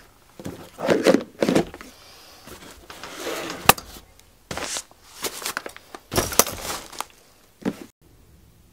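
Gear being handled and packed by hand: rustling of cloth pouches and a fur pelt among irregular knocks and clicks, one of them sharp about halfway through. The sounds stop suddenly near the end.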